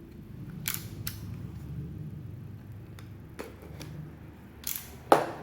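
Cardboard shipping box being opened by hand: several short scrapes and rips of tape and cardboard, the loudest a sharp one near the end.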